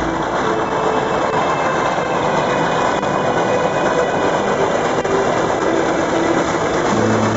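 Steam train running: a steady, dense rushing noise.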